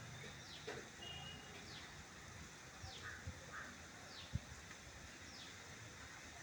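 A bird calling faintly: a short, falling chirp repeated evenly about once a second. There is a single faint click about four seconds in.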